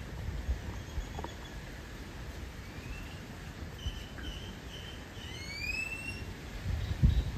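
Bird calls: a row of short whistled notes and several rising whistles, the clearest about two-thirds of the way through, over a steady low rumble, with a low thump near the end.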